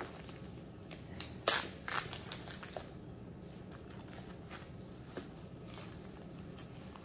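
Wrapping crinkling and rustling as a handbag strap is unwrapped: a few sharp crackles in the first three seconds, the loudest about a second and a half in, then quieter handling.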